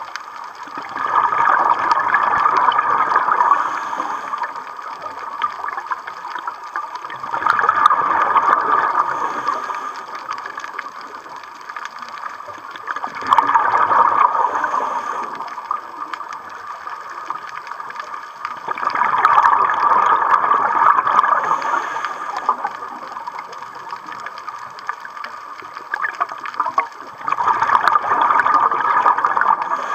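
Scuba diver's exhaled bubbles rushing from the regulator, heard underwater: five bursts of bubbling, each two to three seconds long and about six to eight seconds apart, with a steady hiss between them.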